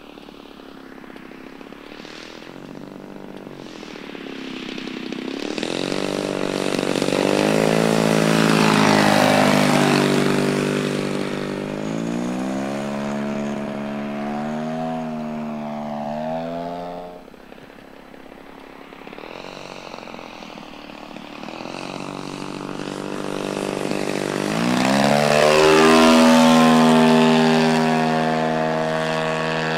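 Engine and propeller of a 40% scale Aeroworks Carbon Cub radio-control airplane in flight. The drone builds as the plane comes near and shifts in pitch with the throttle, drops away suddenly about two-thirds of the way in, then climbs in pitch and grows loudest near the end.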